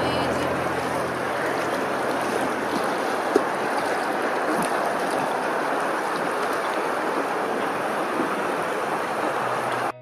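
Steady rushing and lapping of open water, with one short click about three and a half seconds in; it cuts off abruptly near the end.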